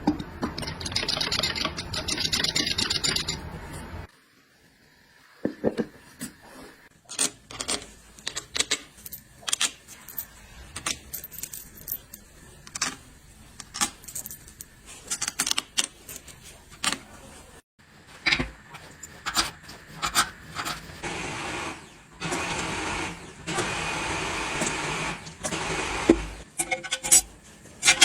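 Metal transmission parts and hand tools clinking and knocking as they are handled, in many short irregular strikes. A steady hiss runs for the first few seconds, and a longer rasping noise comes near the end.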